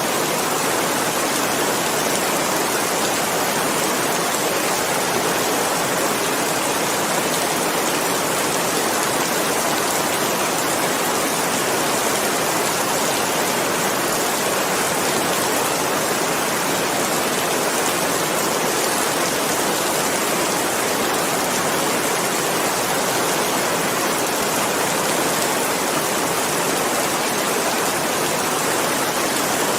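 Steady, unbroken rain hiss with no separate drops or thunder standing out.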